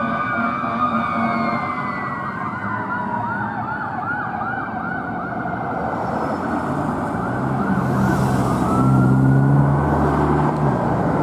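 Emergency vehicle sirens on a responding fire engine and ambulance: an electronic siren yelping fast, about three or four chirps a second, over a slowly falling siren tone. In the last few seconds a deep air horn sounds in several blasts while a siren winds up again.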